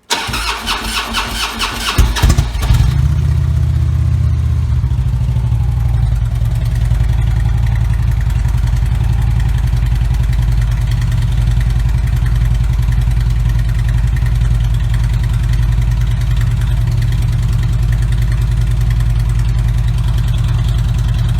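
2007 Harley-Davidson Ultra Classic's fuel-injected V-twin cranking on the starter for about two and a half seconds, catching, and settling into a steady idle. This is its first start after a new idle air control valve and fuel line connector on the throttle body.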